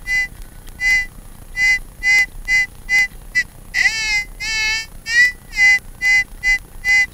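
Metal detector's audio beeping repeatedly as it is swept over a buried target: short high electronic beeps about two a second, breaking into wavering, gliding tones around the middle.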